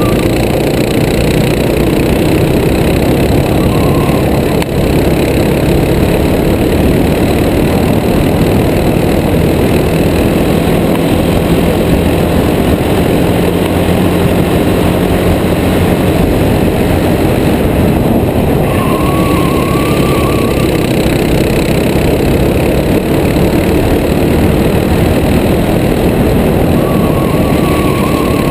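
Racing kart's engine running at speed through corners, heard from a helmet-mounted camera under heavy wind and track noise. A short wavering whine comes in twice in the second half.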